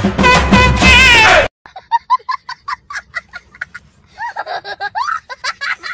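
Loud music cuts off suddenly about a second and a half in. A young boy then laughs hard in quick, high-pitched bursts, with longer rising and falling squeals near the end.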